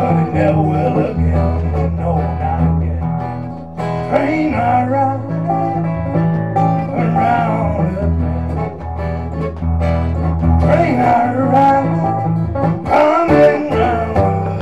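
Solo acoustic guitar strummed over steady low bass notes while a man sings.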